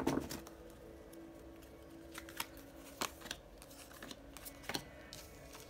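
Tarot cards being shuffled by hand: a few soft, scattered card clicks and taps, about one every half second to a second, over a faint steady hum.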